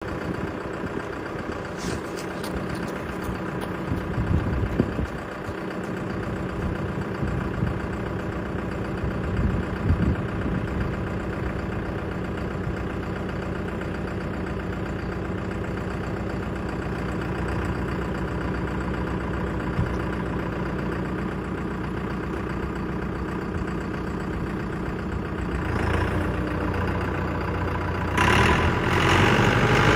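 Massey Ferguson 5445 tractor's four-cylinder diesel engine idling steadily, then revving up near the end as the tractor pulls away.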